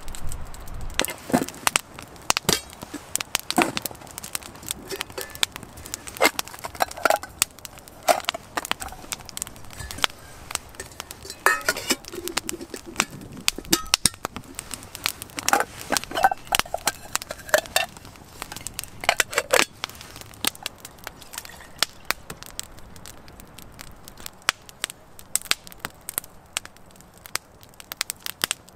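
Wood campfire crackling and popping in irregular sharp snaps, with scattered metallic clinks and knocks from a small metal tin and cookware being handled.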